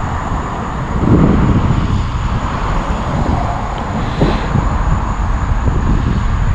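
Wind buffeting the microphone, a loud, continuous low rumble that surges about a second in.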